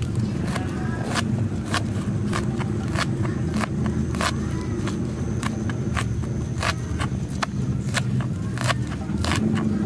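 A knife slicing spring onions thinly on a cutting board, in sharp even cuts about three a second, over a steady low rumble.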